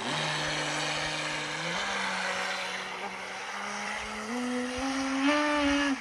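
Electric motor of an RC speedboat running on a 3S LiPo, a steady whine whose pitch steps up about two seconds in and climbs again near the end, where it is loudest.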